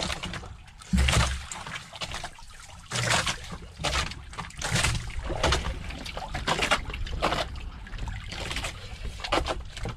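Water lapping and splashing against the side of a fishing boat in uneven bursts, with a few low thuds.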